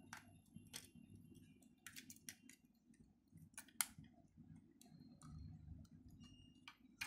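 Faint, scattered clicks of plastic building-brick pieces as a toy submarine's clear dome is handled, lifted off and set back; the sharpest click comes just before four seconds in. Otherwise near silence with a low room hum.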